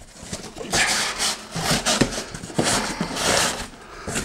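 Cardboard and packaging rubbing and scraping as items are pulled out of a large shipping box, in several rough strokes starting under a second in.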